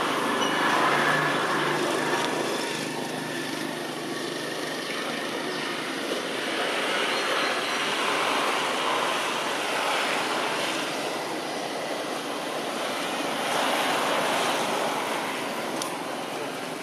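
Steady outdoor rushing noise, like distant traffic or wind through trees, swelling and easing a few times, with a single faint click near the end.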